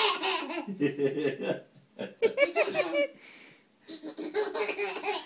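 A baby laughing in repeated bursts of giggles and belly laughs, with short pauses for breath, while a cat licks its toes.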